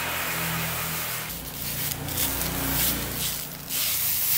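Clear protective plastic film being peeled off a scooter windscreen: a rustling hiss that comes in uneven surges, with a short dip a little after a second in and another near the end.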